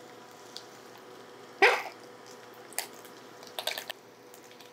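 Heinz ketchup being squeezed from a plastic squeeze bottle into a metal measuring cup: one loud, rising splutter about a third of the way in, then a few short spurts near the end.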